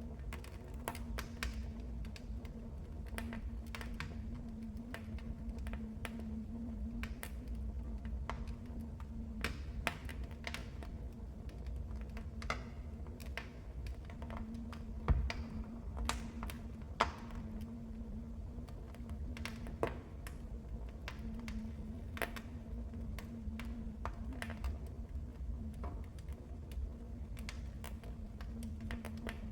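Wood fire crackling, with irregular sharp pops and snaps over a low steady rumble of the burning logs; the loudest pop comes about halfway through.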